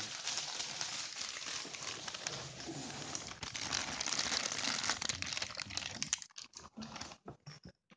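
Clear plastic packaging bag crinkling and rustling as it is handled, dense for about six seconds, then thinning to a few scattered crinkles near the end.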